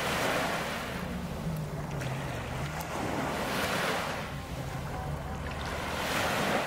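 Small waves breaking and washing up a sandy shore, each wave a swell of surf about every three seconds.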